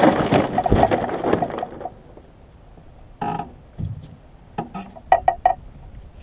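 A Northern snakehead thrashing in a plastic cooler, knocking and slapping against its walls for the first couple of seconds. The cooler lid then shuts with a thud, followed by a short run of sharp clicks.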